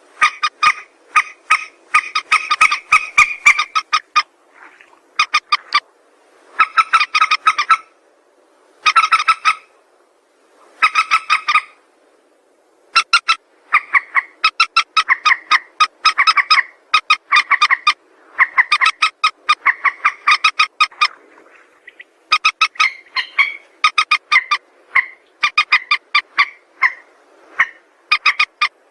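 Calls of a rail known as mandar sawah, used as a lure call: bouts of rapid, sharp repeated notes, each bout lasting one to a few seconds, with short pauses between them.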